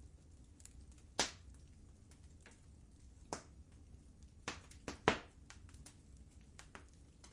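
Wood fire crackling in a fireplace: irregular sharp pops and snaps over a low steady rumble, with the loudest pops about a second in and a cluster of three around the fifth second.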